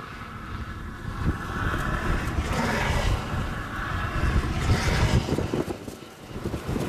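Gusty wind buffeting the microphone, a low rumbling noise that swells about a second in and eases near the end.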